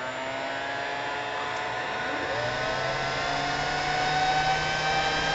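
Sanyo Denki San Ace 48 V high-RPM cooling fan spinning up: its whine of several stacked tones keeps rising slowly in pitch and grows steadily louder as the temperature controller raises the fan speed, over a steady rush of air.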